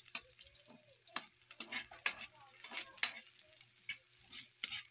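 Chopped onions sizzling in hot oil in a wok, with a metal ladle scraping and knocking against the pan in irregular strokes about twice a second as they are stirred.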